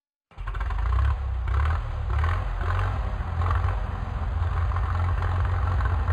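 Tractor engine running steadily, its sound heaviest in the low range, starting about a third of a second in.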